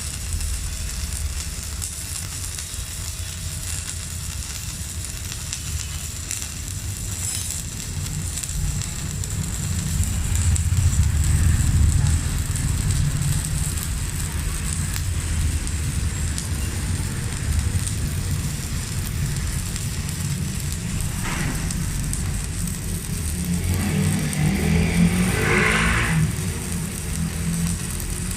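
Electric arc of a Megatec mini inverter stick welder crackling and sizzling steadily as a welding rod burns down. This is a continuous multi-rod run to load-test the machine.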